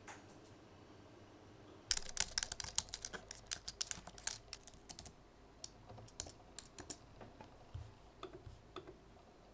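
Typing on a low-profile white-keyed computer keyboard: a quick run of key clicks starting about two seconds in, thinning out after about five seconds to a few scattered, fainter taps.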